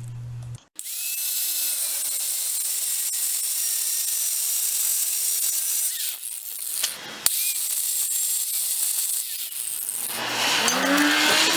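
Angle grinder cutting into the cast-iron brake disc's upstand section: a steady, high-pitched grinding hiss. It breaks off briefly about seven seconds in and grows louder near the end.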